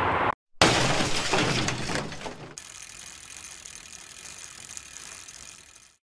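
Sound effect for an animated channel-logo intro: a sudden loud rattle of dense clicks that fades over about two seconds into a faint hiss, then cuts off abruptly.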